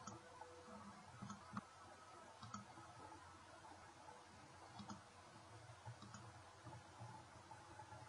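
A few scattered computer mouse button clicks over faint hiss.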